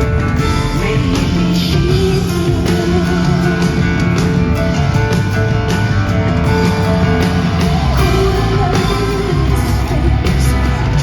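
Live band music: a woman singing over bass and drums, with drum hits throughout.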